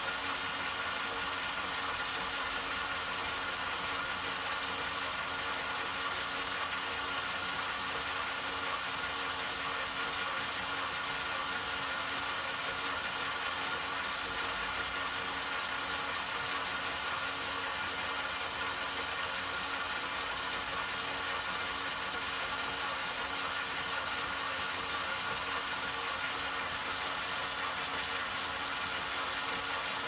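Motor of an enMotion paper towel dispenser running continuously: a steady mechanical whir with several fixed tones and no change in speed.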